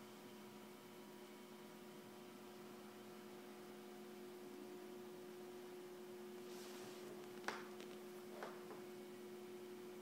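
A faint steady hum, with a light rustle and two short clicks in the second half as plastic power-cord plugs and cable are handled.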